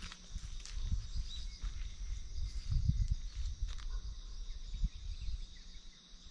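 Outdoor summer ambience: a steady chorus of insects chirring, with an uneven low rumble underneath.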